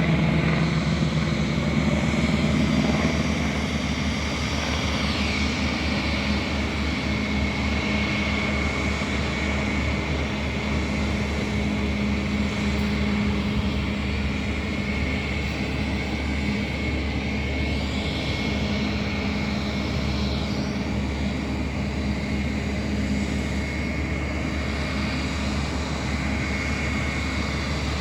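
Aircraft engines running with a steady drone and a high whine. A tone falls in pitch about five seconds in and again around twenty seconds.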